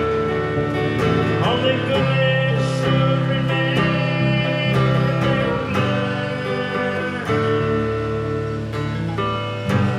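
Instrumental break in a live country song: strummed acoustic guitar with held notes and a few sliding notes.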